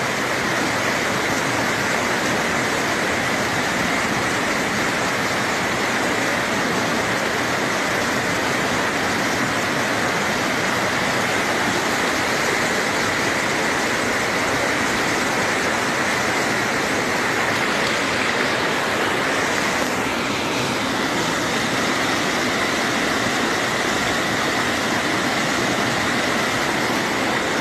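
Flash-flood torrent of muddy water rushing down a village street: a loud, steady roar of water that does not let up.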